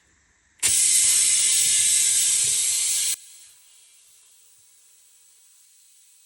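A loud burst of compressed air rushing into a tractor tire while trying to seat the bead, lasting about two and a half seconds and cutting off suddenly, leaving a faint hiss.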